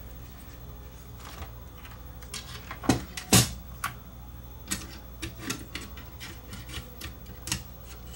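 Cassette deck mechanism being set back into a stereo deck's chassis by hand: scattered plastic and metal clicks and knocks, the loudest two close together about three seconds in.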